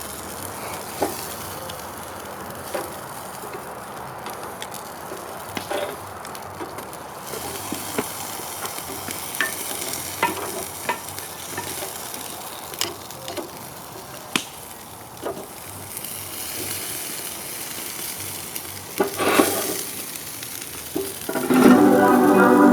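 Meat sizzling on a grill over a campfire: a steady hiss with scattered sharp pops and crackles. Music comes in near the end.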